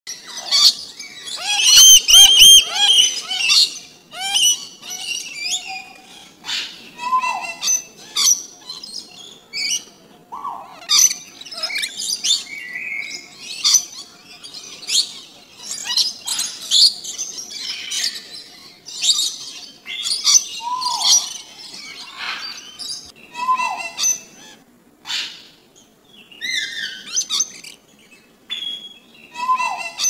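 A parrot and other birds calling in a mix of chirps, whistles and squawks, loudest in a burst of pitched calls about two seconds in. A short falling whistle comes back every few seconds.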